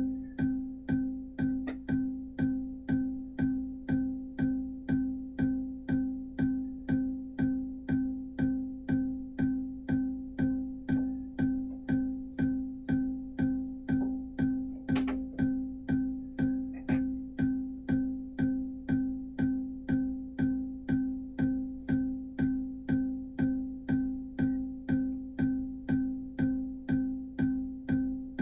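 Arturia MiniFreak synthesizer repeating one plucked, clicky note about twice a second at an even rate over a steady held tone at the same pitch.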